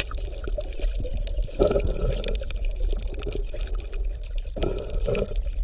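Underwater water sounds: a steady low rumble with dense crackling clicks, and two louder watery bursts, about one and a half seconds in and again about a second before the end.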